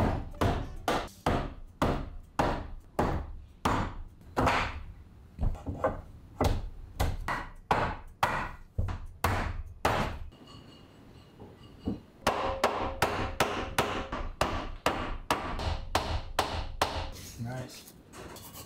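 Repeated strikes on a wooden door frame as it is knocked together and its pegs driven, about two blows a second. They pause about ten seconds in, then come faster.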